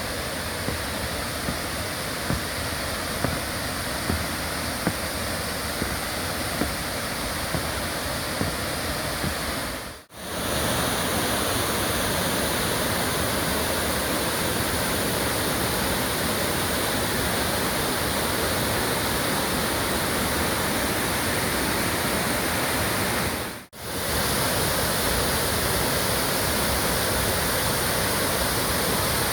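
Dzhur-Dzhur waterfall in heavy flow, a steady loud rushing of falling water, running near its maximum for the season after a rainy autumn. The sound drops out for a split second twice, about a third of the way in and again after two thirds, where the recording is cut.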